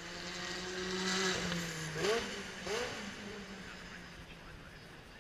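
Racing car engine passing at speed: a steady engine note swells, drops in pitch about two seconds in, then two quick rising rev sweeps as it pulls away and fades.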